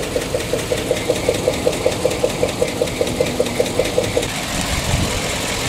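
PAZ-672 bus's V8 engine idling smoothly and evenly, with no knock audible. A light rhythmic ticking at about eight beats a second runs over the engine's sound and stops about four seconds in.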